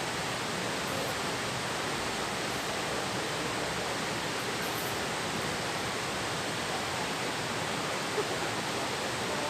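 Steady rushing of flowing river water, an even hiss-like noise that does not change.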